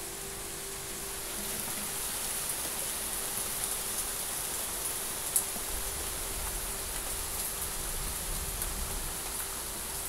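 Steady rain: a continuous hiss with scattered drop ticks, one sharper tick about halfway through.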